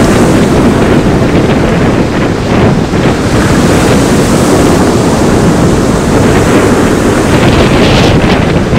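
Wind buffeting the microphone over sea waves breaking and washing onto a pebble beach; a wave breaks with a louder hiss near the end.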